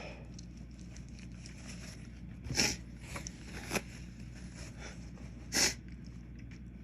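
A man sneezing twice, about three seconds apart, each a short loud burst, set off by inhaled white pepper; a few smaller sniffs or snorts come between them.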